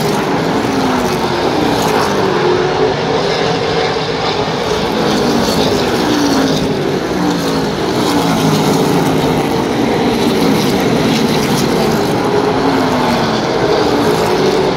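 A pack of ARCA Midwest Tour super late model race cars' V8 engines running hard, many engines at once, their pitches rising and falling over one another as the cars pass and go through the corners.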